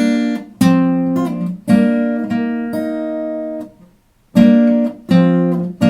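Acoustic guitar with a capo on the third fret, fingerpicked: several strings plucked together at once, about five times, each chord left to ring and fade, with a short silent break about four seconds in.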